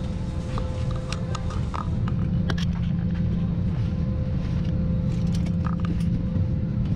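Steady low cabin hum of an Airbus A320 parked on the ground, with its air-conditioning and aircraft systems running, overlaid by scattered light clicks and knocks of cabin fittings.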